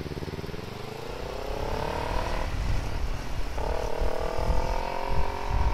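Motorcycle engine accelerating hard, its pitch rising for about two and a half seconds, cutting out briefly for an upshift, then rising again in the next gear, with wind rumble over the microphone.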